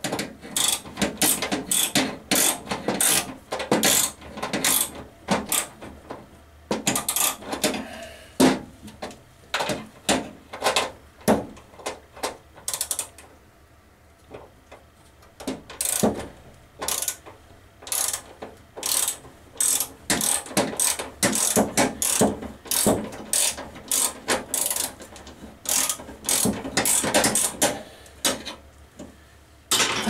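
Ratchet wrench clicking in repeated quick bursts as the bolts on an evaporator fan motor mount are worked loose, with a short pause about halfway through.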